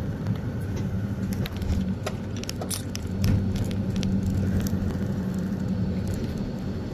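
Road vehicle under way: a steady low engine drone with a few short clicks and rattles.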